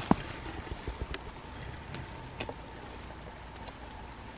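Footsteps in snow and brushing through snowy branches, with a few sharp twig snaps, the loudest two right at the start.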